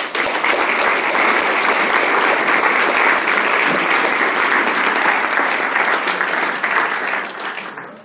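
Audience applauding, a dense patter of many hands clapping that starts suddenly and tapers off near the end.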